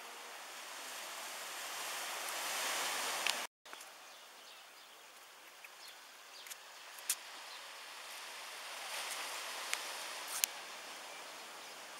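Outdoor ambient noise: a steady hiss that swells and fades, with a few light clicks and a brief cut to silence about three and a half seconds in.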